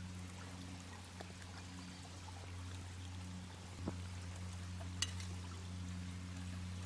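Steady rushing of flowing creek water, with two light metal clinks about four and five seconds in as a titanium mug is set onto a titanium pot stand over a small spirit burner.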